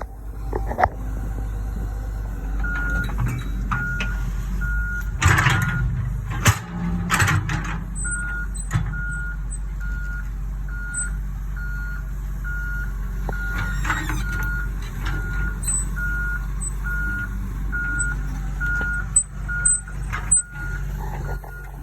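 Cat 315 LC excavator's diesel engine running steadily, with its travel alarm beeping about twice a second from about three seconds in as the machine tracks. A few loud clattering knocks come around five to seven seconds in.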